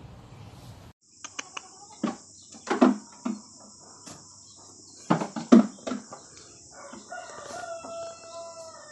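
A series of short, loud thumps and knocks as baby goats jump about on a wooden box and boards, over a steady high hiss. Near the end a rooster crows once, a long, level call.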